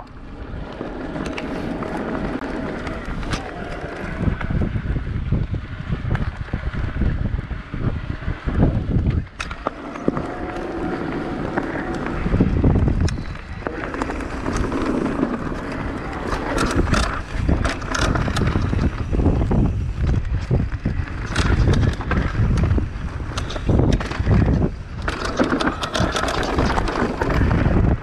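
Electric mountain bike ridden fast down a dirt trail: a steady rush of tyres on dirt with the chain and frame rattling and clattering over bumps, and wind buffeting the microphone throughout.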